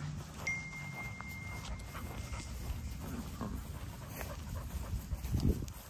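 Dog panting close to the microphone, with low wind and handling rumble underneath. A thin steady high tone sounds for about a second, starting about half a second in.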